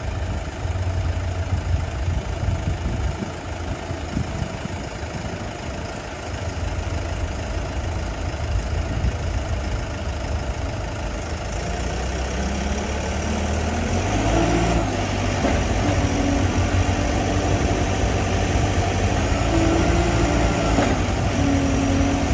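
Diesel engine of a four-wheel-drive forklift idling, then revving up about twelve seconds in and running at higher speed with a steady whine.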